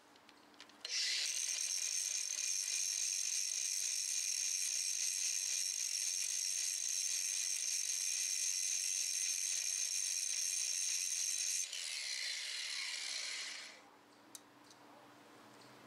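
Electric angle grinder with a cut-off disc cutting down a steel bolt on a wheel hub assembly, shortening it so it won't stick out past the bearing. The motor starts up about a second in with a rising whine and runs at a steady high pitch while cutting. After about ten seconds it is switched off and winds down, falling in pitch, followed by a small click.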